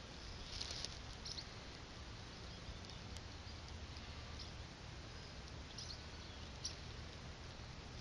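Faint outdoor background: a steady low hiss and rumble, with a few brief, high-pitched chirps scattered through it, the clearest about half a second in and again near the end.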